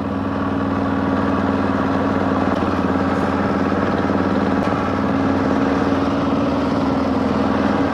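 Yamaha Ténéré 660 single-cylinder motorcycle engine running steadily while riding, with an even hum and no change in speed.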